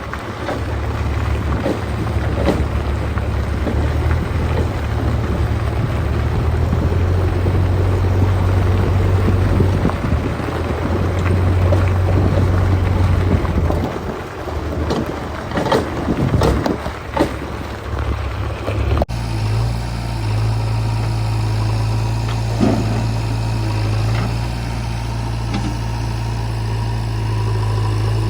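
Heavy diesel machinery engine running steadily, with wind on the microphone and a few sharp knocks about two-thirds in. After a sudden cut it gives way to a steadier engine idle.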